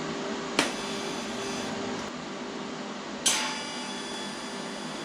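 Two sharp metal-on-metal strikes, about two and a half seconds apart, each ringing briefly like struck steel, over a steady shop hum.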